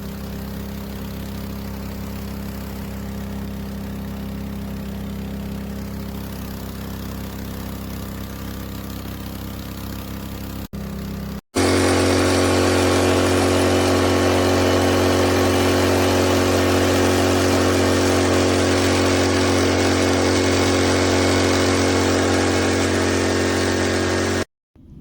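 maXpeedingrods 3500 W four-stroke petrol generator running at a steady speed. About eleven seconds in, the sound breaks off briefly and comes back as a louder, steady engine hum.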